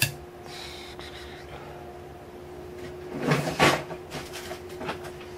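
Screwdrivers and a metal airsoft gearbox being handled on a towel-covered bench while a smaller screwdriver is sought: a sharp click at the start, a short burst of clatter about three seconds in, then a few lighter knocks, over a faint steady hum.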